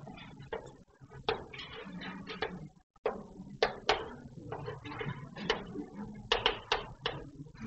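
Chalk writing on a blackboard: an irregular run of sharp taps and short scratches as the letters are written.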